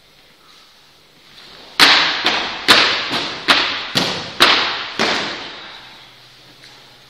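Plastic training swords striking in a fast exchange: about eight sharp clacks in quick succession, roughly two a second. Each one rings out briefly in the hall.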